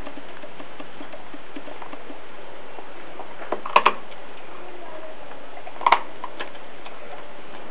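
Australian cattle dog chewing a whole raw rooster: sharp crunches of bone in a short cluster about three and a half seconds in and again near six seconds, with fainter ticks between, over a steady hiss.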